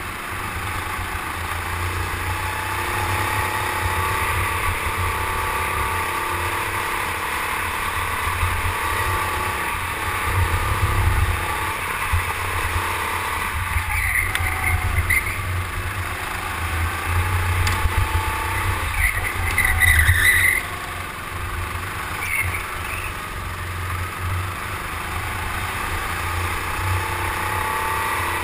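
Go-kart motor heard from on board, its pitch rising and falling as the kart speeds up and slows for corners, over a steady low rumble. Short, higher squeals come twice, near the middle and about two-thirds of the way through.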